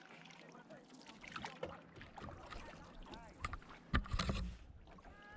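Small two-person boat out on a loch: water moving and paddling sounds, with a sharp knock about four seconds in followed by a brief low rumble.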